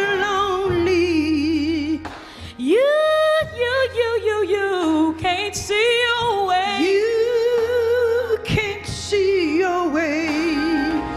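Gospel singing: a woman's voice holds long notes with wide vibrato and slides between pitches, over a steady low accompaniment.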